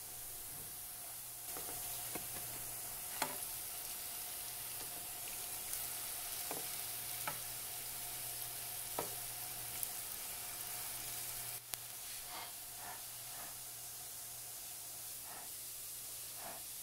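Twisted breadstick dough shallow-frying in hot oil in a nonstick pan, with a steady sizzle. Scattered sharp clicks come from metal tongs tapping the pan as the sticks are turned.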